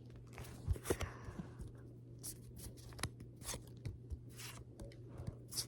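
Pokémon trading cards and booster-pack wrapping being handled: soft taps and clicks with brief papery rustles and scrapes, over a faint steady hum.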